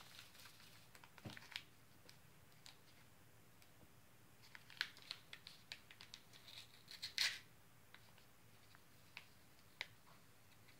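Faint handling sounds of a foil MRE pouch and a small condiment packet: scattered light clicks and rustles, with a brief crinkling tear about seven seconds in as the packet is torn open.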